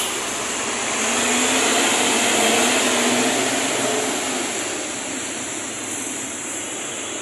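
Intercity bus driving off, its engine note rising as it gathers speed. The engine grows louder for the first couple of seconds, then slowly fades.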